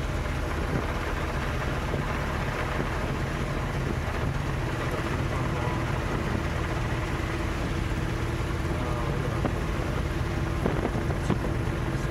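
Light single-engine airplane's engine and propeller running steadily, heard inside the cockpit: an even low drone with a steady hum.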